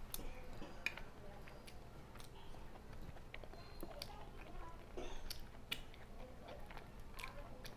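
Close chewing of dal puri and soybean curry, with scattered short clicks of the mouth.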